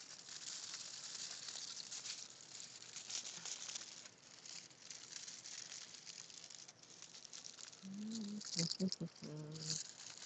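Thin household aluminium foil crinkling in the hands as it is wrapped around a branch, a steady run of small crackles. A brief voice-like hum near the end.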